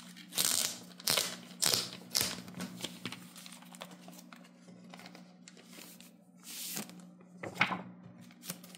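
Pages of a comic book being flipped through by hand: a series of quick paper swishes and rustles, several close together in the first few seconds and two more near the end.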